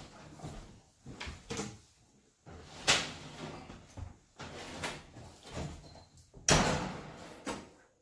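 Frigidaire gas range being pulled out from between the counters: irregular scraping and clunking of its metal body. The loudest knocks come a little under three seconds in and again about six and a half seconds in.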